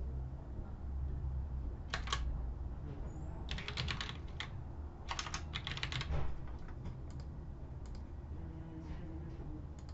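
Typing on a computer keyboard: bursts of rapid keystrokes, busiest between about two and six seconds in, then a few scattered key presses, over a low steady hum.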